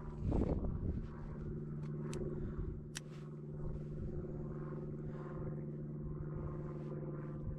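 Wind buffeting the microphone, with a loud low gust about half a second in, over a steady mechanical hum; a few faint sharp clicks.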